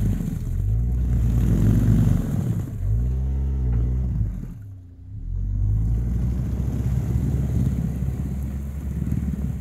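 Engine of a balloon-tyred ATV revving under load as it churns through deep bog mud. It eases off sharply about five seconds in, then revs up again and holds.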